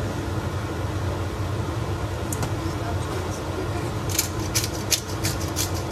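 Pepper grinder being twisted over a cooking pot: a quick run of dry, crackling clicks sets in about four seconds in, over a steady low hum.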